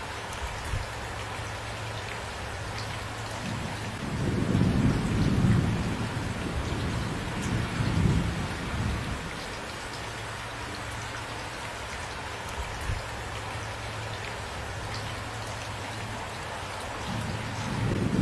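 Steady rain falling, with a low rolling rumble of thunder that swells about four seconds in and dies away over several seconds, and a second rumble building near the end.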